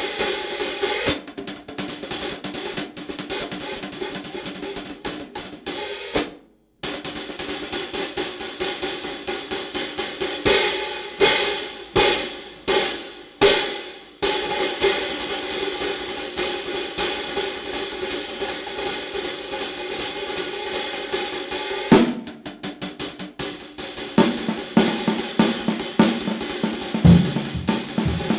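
A pair of 16-inch hand-hammered B20 bronze hi-hats, thin and light, played with sticks in a fast, steady pattern. It breaks off briefly about six seconds in, then several open strokes ring out and decay between about ten and fourteen seconds. Low drum hits join near the end.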